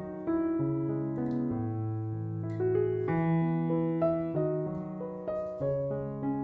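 Background piano music: a slow run of chords and melody notes.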